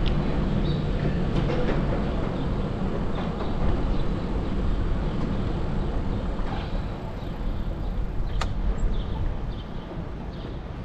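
Steady low rumble of riding a bicycle on city streets, with wind on the microphone and tyre noise, easing a little in the last few seconds. One sharp click comes about eight seconds in, and faint high chirps sound now and then.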